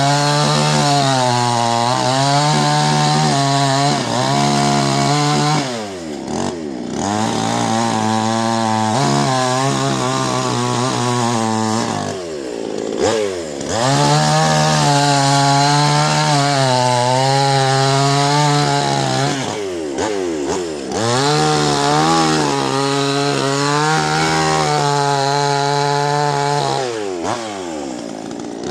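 Two-stroke chainsaw running at high revs as it cuts wood. The engine drops away four times and revs back up each time.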